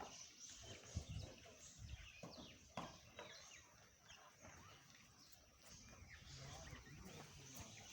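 Faint farmyard ambience with a few scattered knocks and short bird chirps.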